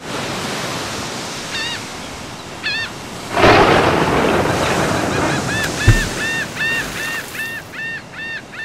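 Seaside sound effect: surf washing in, with a wave breaking about three and a half seconds in, and gulls crying, a couple of single calls at first, then a quick run of about three calls a second in the second half. A brief low thud comes just before six seconds.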